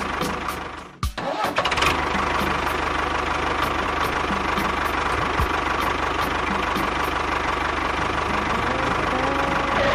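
The small motor of a DIY mini tractor running steadily with a thin high whine. It cuts out briefly about a second in, then comes straight back at the same level.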